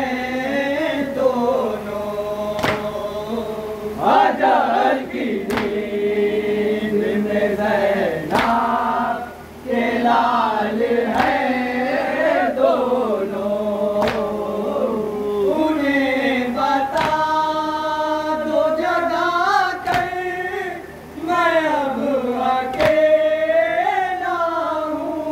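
A small group of men chanting an Urdu noha, a Shia mourning elegy for Hussain, in unison with no instruments. Sharp chest-beating (matam) thuds keep time about every second and a half.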